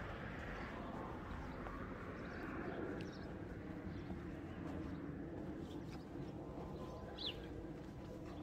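Faint outdoor ambience: a low, steady rumble that slowly fades, with a few short bird chirps, the clearest about seven seconds in.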